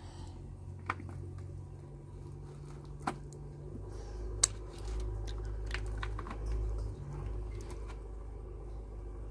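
A spoon clinking against a dish as a baby is fed water rice, with a few sharp clicks: about one second in, around three seconds in and, loudest, about four and a half seconds in. A steady low hum runs underneath.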